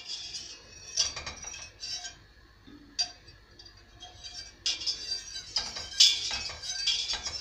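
A metal spoon clinking against a stainless steel pot. A few separate clinks come in the first three seconds, then a busier run of them in the last few seconds.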